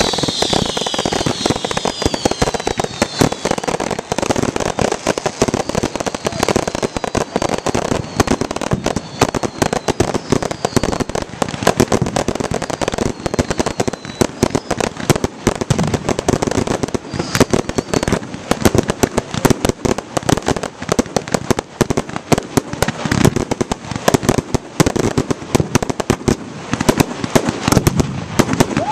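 Fireworks display: a rapid, continuous barrage of bangs and crackling from bursting aerial shells. Several whistles falling in pitch sound in the first few seconds.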